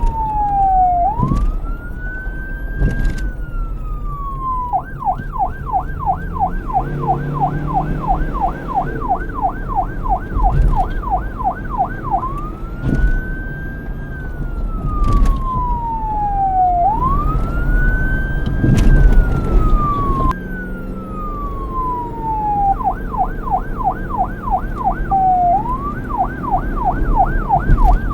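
Police car electronic siren switching back and forth between a wail, a slow rise in pitch that falls away over a couple of seconds, and a yelp, a fast up-and-down warble about three or four times a second. A low rumble runs beneath it.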